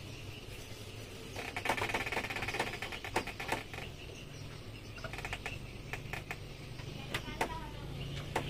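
Metal parts of a Yamaha 15 hp outboard's lower unit clicking under hand work: a quick run of rapid clicks about a second and a half in, then scattered single clicks.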